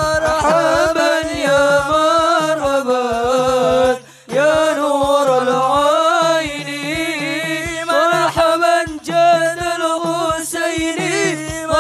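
Male sholawat singing in long, ornamented melismatic phrases over a hadroh ensemble's frame drums beating a steady rhythm. The music breaks off for a moment about four seconds in, then resumes.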